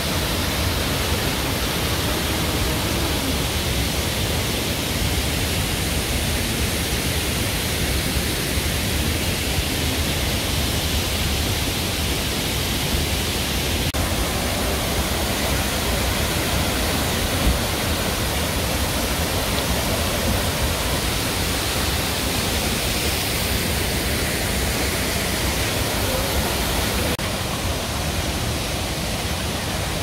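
Waterfall in monsoon flood, a heavy muddy torrent pouring down a rock face: a steady, even rushing of water with no break.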